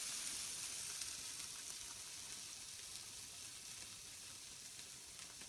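Faint sizzling of a hot frying pan, slowly dying away.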